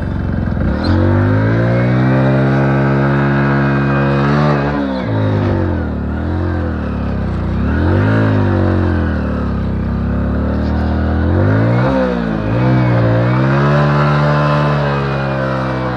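Hero HF Deluxe's single-cylinder four-stroke engine under load while the motorcycle rides through sand, its pitch rising and falling as the throttle is opened and eased. The pitch climbs about a second in, drops and recovers a few times around five to eight seconds, dips again near twelve seconds, then climbs back.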